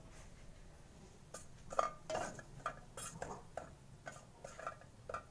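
Faint, irregular clicks and taps of unpeeled garlic cloves heating in a pan over a low flame, starting about a second in.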